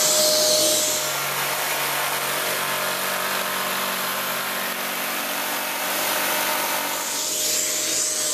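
Kärcher multi-purpose wet and dry vacuum running with a steady whine. About a second in, a power tool plugged into the vac's socket starts and runs alongside it. The tool stops near the end while the vac keeps running.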